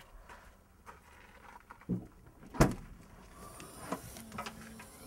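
Car rear hatch being opened: a dull thump, then a sharp latch click about two and a half seconds in, the loudest sound, followed by a soft hiss and small clicks and rustles as the tailgate lifts.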